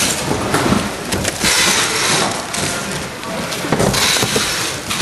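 Plastic food bags crinkling and rustling as they are zipped and packed into boxes by hand, with irregular light knocks of packing.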